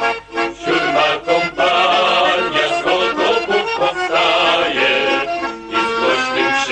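Accordion playing a folk-style song tune, opening with a few short detached chords and then running on steadily.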